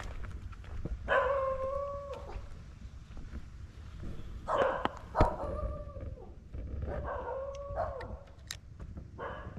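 A dog howling or whining in three long, drawn-out calls, each holding one pitch for about a second and sagging at the end. A sharp click comes about five seconds in.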